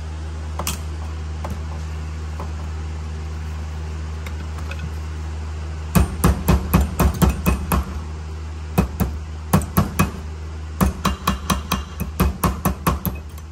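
Small hammer tapping metal brake pad clips down into a disc brake bracket: quick light metallic taps in three runs, starting about six seconds in, over a steady low hum.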